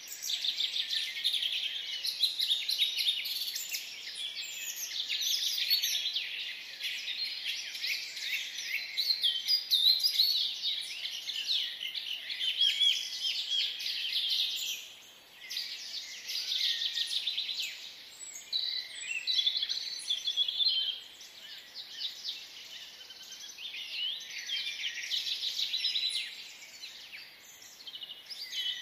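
Many small birds chirping and twittering together in a dense, continuous chorus of quick high trills and sweeping notes, easing briefly around the middle.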